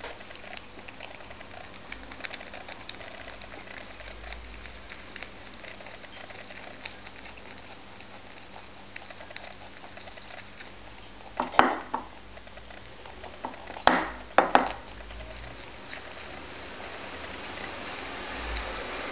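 Lop-eared rabbit eating chopped kale quickly: a fast, steady stream of small crisp chewing clicks, with three louder knocks about two-thirds of the way in.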